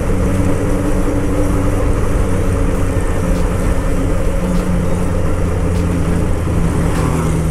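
Honda CB750 Boldor's air-cooled inline-four running steadily under way, heard from the bike with wind and road rush. The revs ease off slightly about halfway through.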